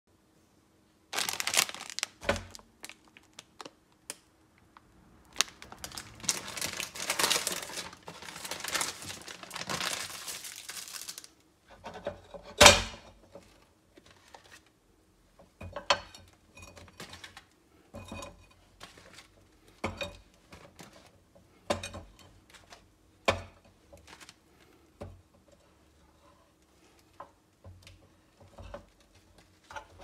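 Plastic food packaging crinkling and tearing for several seconds. A sharp clack follows, then a string of light knocks and clicks as frozen takoyaki are set into the open cast-aluminium CHUMS hot sandwich cooker and its lid is handled.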